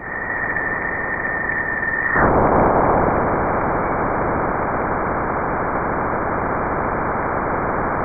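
Sonified radio-wave data from around Jupiter's magnetic field, from NASA's Juno spacecraft. It is a dense, crackly hiss with a steady high tone over it for about the first two seconds. After that the tone drops out and the hiss gets louder.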